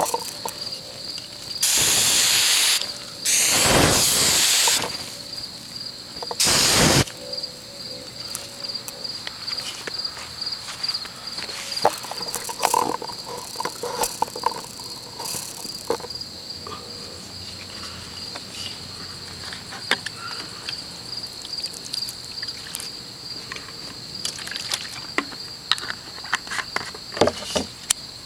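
A flame jet hissing in three bursts of about a second each within the first seven seconds, with scattered small clicks and crackles afterwards. Crickets chirp steadily in a high pulsing trill underneath.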